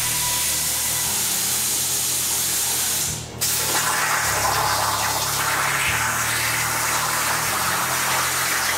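Homemade CNC plasma cutter: a steady hiss of air through the torch, a short break about three seconds in, then the arc fires and cuts through steel plate with a louder, harsher hiss.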